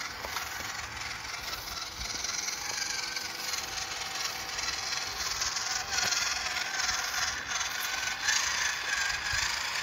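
Small RC crawler truck's 370 electric motor and two-speed gearbox whining as it drives, the pitch wavering up and down with the throttle.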